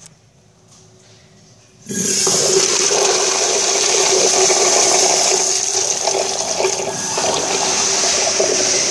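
Kohler Dexter urinal flushing: after about two seconds of quiet the flush valve opens suddenly and water rushes into the bowl, a loud steady rush with a steady low tone under it.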